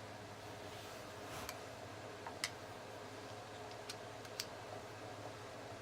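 Four or five faint, sharp metal clicks of a screwdriver and small steel parts being handled while the side plate screw is taken out of an 1866 lever-action rifle, over a steady low hum.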